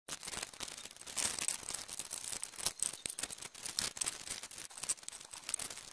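Hands handling a paper sheet and small tools on a metal workbench: rustling with a scatter of light clicks and knocks.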